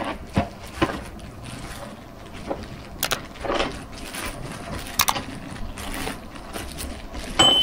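Handling noises: rustling with several sharp clicks, and a short high beep near the end.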